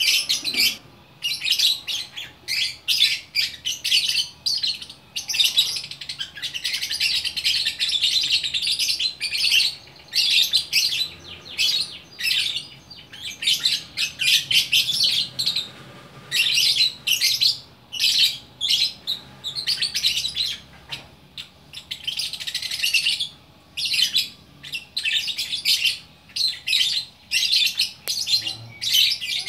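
Lovebird chattering in rapid, shrill streams of high chirps, in bursts of half a second to two seconds separated by short gaps. This is the constant, vigorous calling that Indonesian bird keepers call 'gacor'.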